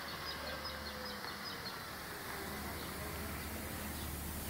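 Outdoor ambience: a steady low hum with a small bird chirping rapidly, about four high chirps a second, that stops about a second and a half in.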